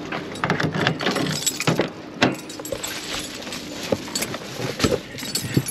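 Keys jangling and clinking as the door of a 1999 Toyota 4Runner is unlocked by hand with a metal key (it has no remote fob), followed by a string of clicks and knocks from the door and the cabin. A heavier thump comes near the end.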